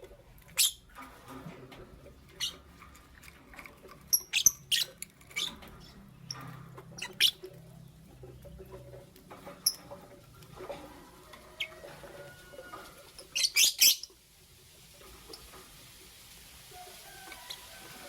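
Lovebirds (a green Fischer's lovebird and a pastel blue lovebird) chirping in short, sharp, high squeaks, scattered and irregular, with a loud burst of rapid chirps about thirteen seconds in, then quieter.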